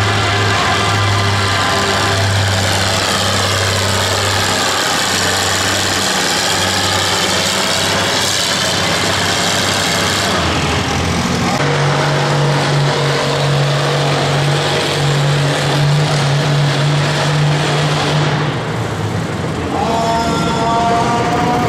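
Antique farm tractor engines running steadily, with no one speaking. About 11 s in, the sound shifts to a higher steady engine pitch.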